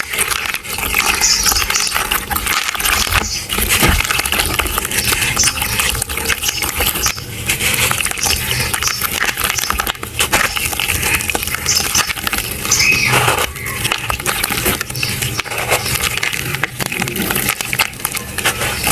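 Clumps of dry red sand crunching and crackling as they are crushed, a dense, continuous stream of small crunches.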